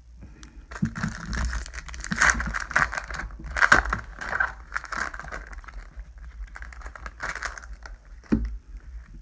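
Foil Pokémon booster pack wrapper crinkling and tearing as it is opened, in uneven crackling bursts.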